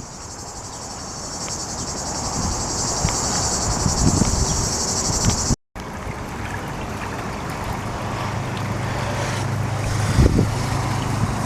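Cicadas buzzing steadily and loudly over outdoor background noise, cut off suddenly a little over halfway through. After that, only outdoor background noise remains, with a low steady hum coming in later.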